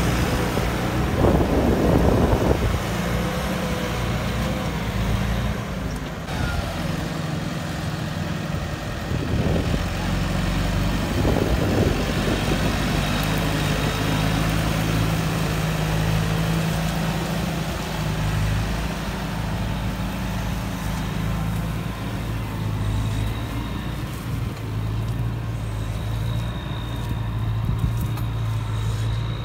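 Diesel farm tractor engines running steadily as they work the field, a low engine drone throughout. Two short swells of rushing noise come about a second in and again about ten seconds in.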